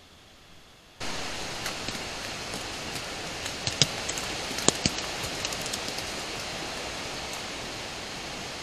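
Steady hiss of an iZeeker IG600 trail camera's recording, starting abruptly about a second in. A few sharp clicks and snaps stand out near the middle.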